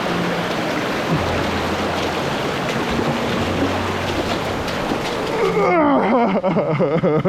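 Rushing mountain stream, a steady wash of water noise. About two thirds of the way in, a louder warbling, wavering tone comes in over it and carries on to the end.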